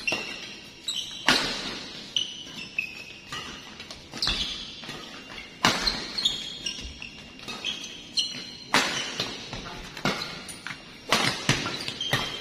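Badminton rally: sharp racket strikes on the shuttlecock, roughly one every second or so, mixed with short high squeaks of shoes on the court floor.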